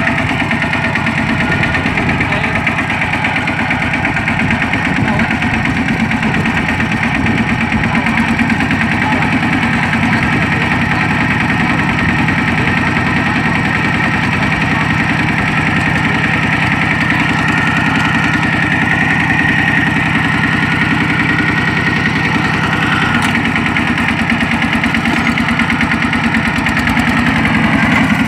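Kubota walking tractor's single-cylinder diesel engine running steadily, with a fast, even firing beat and no change in speed.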